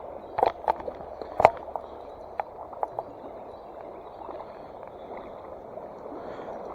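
Steady rush of flowing stream water, with several sharp clicks and knocks in the first three seconds.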